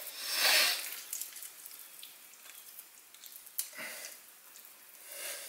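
Quiet wet handling of a raw rolled pork roulade as a thin wooden skewer is worked through the meat, with a short rush of noise about half a second in and a faint click about three and a half seconds in.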